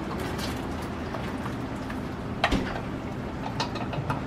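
Cooked ground meat and grease being tipped from a hinged nonstick frying pan into a pot: light scraping and small clatters, with one sharp knock of pan against pot about two and a half seconds in, over a steady hiss.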